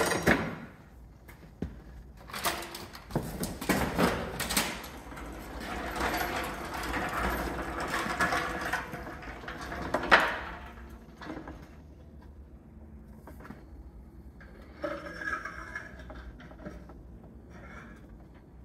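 Knocks and a long scraping as a large drain pan is dragged and set in place under the car, with a sharp bang about ten seconds in and a few lighter knocks later.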